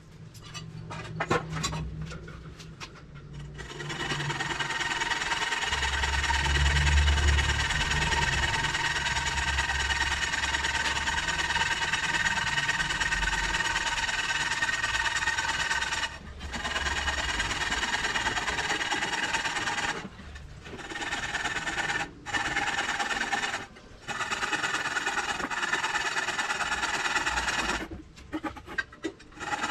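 A small electric motor running in long spells with a steady whine, stopping briefly several times and starting again. A few clicks and knocks from handling come before it starts.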